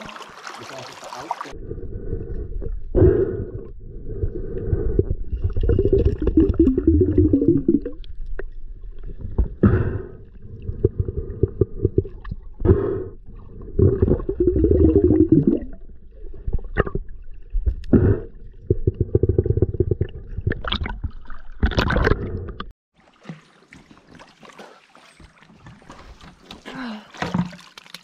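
Muffled underwater sound of a river heard through a submerged camera: low rushing and gurgling water with irregular knocks and clicks while a snorkeler works among the rocks. A little over three-quarters of the way through, the camera comes out of the water and the sound turns thin and quieter.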